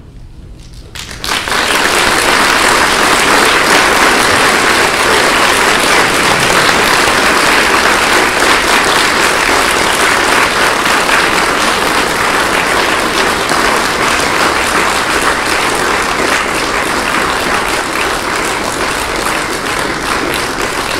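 Audience applauding: the clapping starts about a second in and goes on steadily, easing slightly toward the end.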